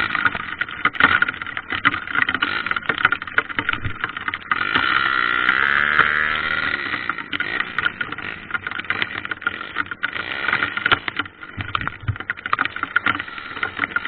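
Trail motorcycle engine running while riding, with many short knocks and rattles. About five seconds in, the engine note rises and falls in a brief rev.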